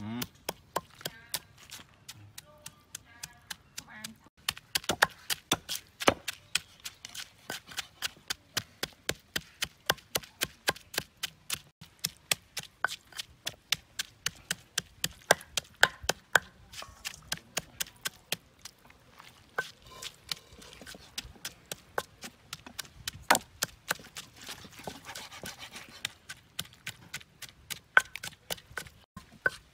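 Meat cleaver chopping a raw duck carcass, bones included, on a wooden chopping block: a long series of sharp chops, sparse at first and then about two or three a second from about four seconds in, some much louder than others.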